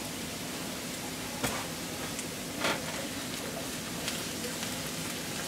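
Sliced yellow squash, onions and celery sizzling in butter in a cast-iron skillet, with two sharp knocks, about a second and a half in and again a second later, as the slices are moved around with a wooden spoon.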